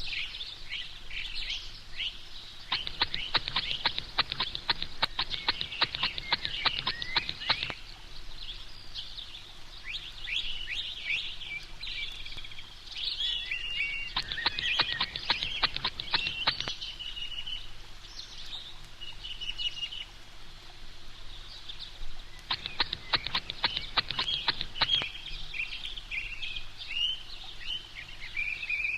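Baby sucking on a pacifier, making high bird-like chirps and squeaks, with three runs of rapid clicking lasting a few seconds each.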